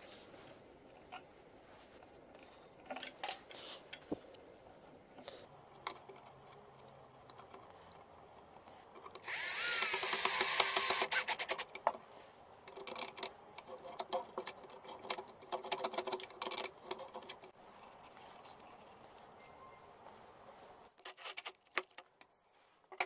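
A small electric motor whirs loudly for about two and a half seconds near the middle, with scattered knocks and clicks of small parts being handled before and after.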